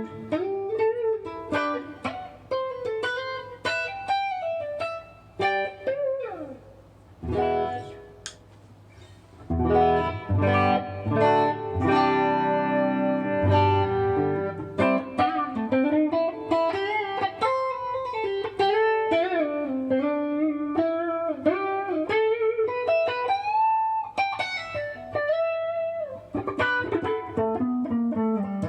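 Kiesel Vader electric guitar with Kiesel Polarity pickups, heard on the middle pickup position in passive mode, playing lead lines with string bends and vibrato. A short slide down comes about six seconds in, and ringing chords run from about ten to fourteen seconds in.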